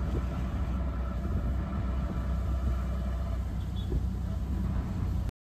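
Auto-rickshaw (three-wheeler) engine running under way, a steady low rumble heard from inside the small open cabin along with road noise. It cuts off suddenly near the end.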